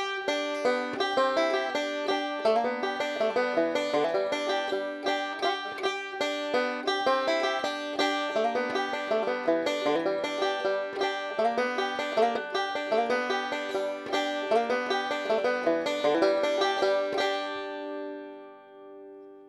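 Resonator banjo fingerpicked with finger picks in quick, even rolls, recorded through a Behringer SL-75C microphone. About 17 seconds in the picking stops and the last chord rings out and fades.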